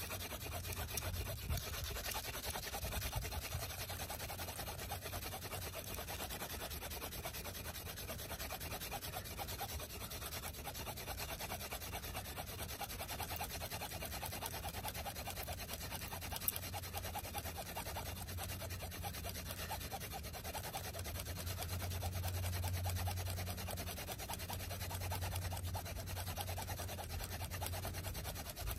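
Wooden hand-drill spindle, a velvet leaf stem set in a thistle-stem coupler, spinning back and forth in the burnt socket of a wooden hearth board. It makes a steady dry rubbing and grinding that pulses with each stroke as friction heats the socket toward an ember.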